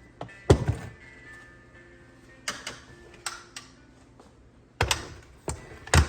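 About six sharp knocks and clatters of kitchen handling, the loudest about half a second in and near the end, over soft background music.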